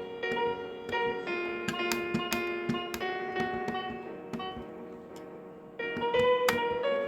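Piano playing a slow melody over chords, each note struck and left to ring. The playing thins out and fades about four seconds in, then comes back louder near the end.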